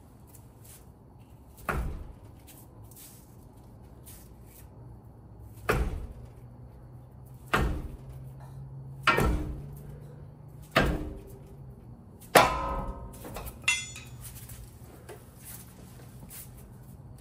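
Hammer blows striking to pull a front CV axle out of a 2017 Toyota Tacoma's differential against the retaining clip that holds its inner end. About seven sharp metallic knocks come a second or two apart, several of them ringing.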